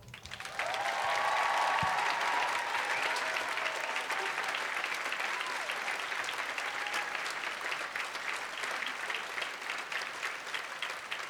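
Audience applauding at the end of a song, starting about half a second in with a few cheers in the first couple of seconds, then slowly dying down.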